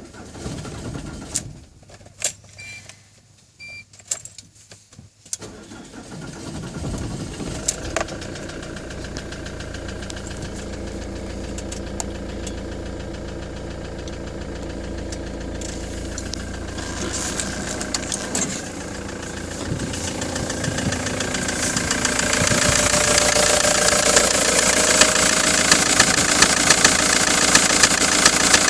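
Ford Transit 2.4 Duratorq four-cylinder diesel engine started about five seconds in, after a few clicks and two short beeps, then idling. It grows louder from about twenty seconds in, with a regular knock, the fault the owner is showing.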